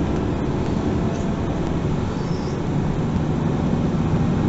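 MAN NG 363 Lion's City GL articulated city bus under way, heard from inside the passenger compartment: steady engine and rolling noise with faint rattles, growing a little louder near the end.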